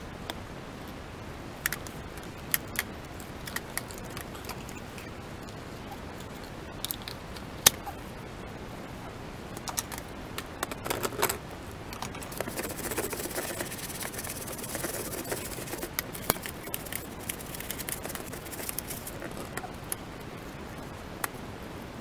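Plastic parts of a Sanyo SC-X12J vacuum cleaner being handled: the dust case and attachments give scattered clicks and knocks, with a busier stretch of scraping and rattling in the middle. A steady hiss sits underneath.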